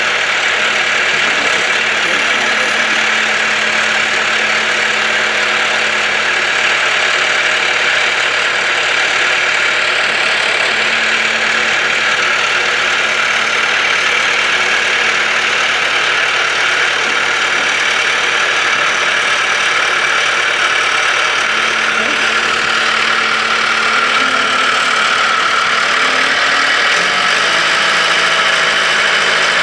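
Case 1845 skid steer loader's engine running steadily at idle, its engine note shifting near the end.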